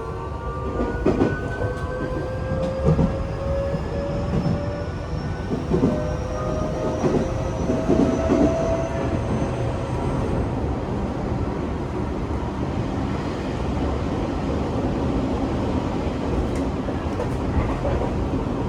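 Tokyo Metro 8000-series train (set 8104F) running, heard from aboard. Its motor whine rises slowly in pitch over the first ten seconds or so as it picks up speed, with wheels clacking over rail joints. A steady running rumble continues after that.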